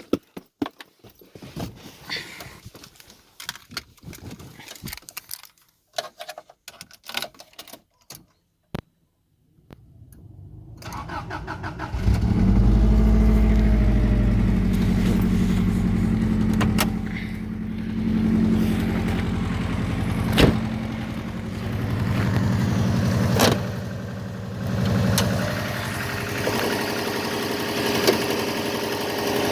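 Subaru EJ205 turbocharged flat-four being cold-started after some clicking and rattling: it cranks about ten seconds in, catches about two seconds later and runs at a fast cold idle that swells and eases a few times. The owner says this engine knocks when cold and the knock goes once it is warm.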